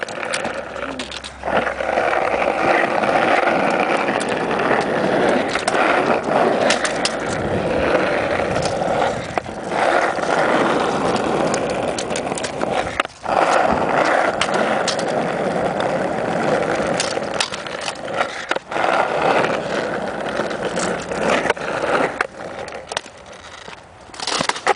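Kick scooter's small hard wheels rolling over street asphalt, a steady gritty rumble that briefly drops out a couple of times, with several sharp clacks as the scooter hits the ground during tricks.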